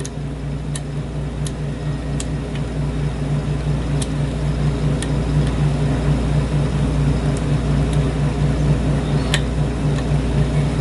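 Steady low background hum, with occasional light, sharp clicks of lock picks and a tension tool working the pin stacks of a lock cylinder during picking.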